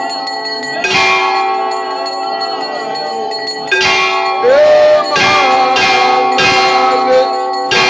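Temple bells rung continuously for the aarti, with many ringing tones overlapping. They are struck afresh every second or so, and more densely in the second half.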